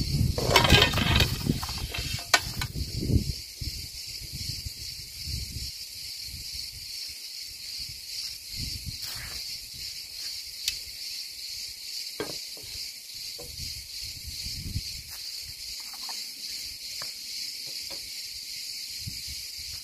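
Wind buffeting the microphone with a low rumble for the first several seconds, over a steady high hiss of insects. Later come a few light knocks and rustles as equipment on the ground is handled.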